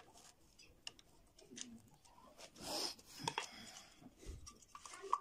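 Faint clicks and light scrapes of pliers and small metal parts being handled at an electric motor's terminal block, with a short scraping rustle a little over halfway through as the terminal box cover is handled.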